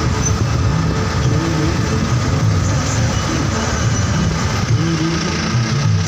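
A motor vehicle on the move: steady engine and road noise.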